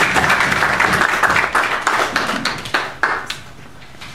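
Audience applauding, a dense patter of claps that dies away about three seconds in.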